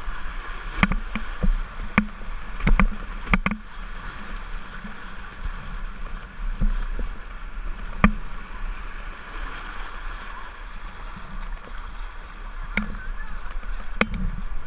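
Whitewater kayak running a rapid: a steady rush of river water, with sharp splashes and knocks from paddle strokes, several in the first few seconds, one about eight seconds in and more near the end.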